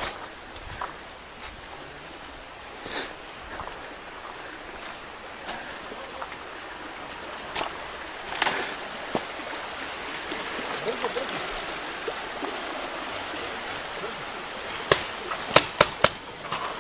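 Rushing stream water under footsteps snapping through dry twigs and brush; about a second before the end, a quick run of five or six sharp cracks, the pop of paintball markers firing.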